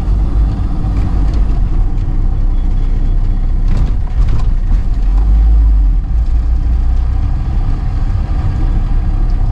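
Car driving along a road, heard from inside the cabin: a steady low rumble of engine and tyres, with two brief clicks near the middle.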